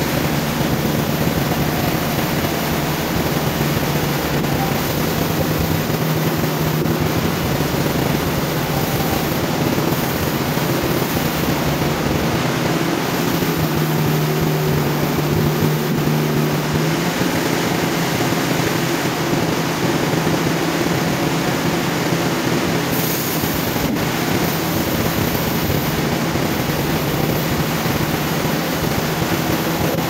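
Large upright band sawmill running steadily: a continuous machine drone with a dense rushing noise, slightly stronger for a few seconds about halfway through.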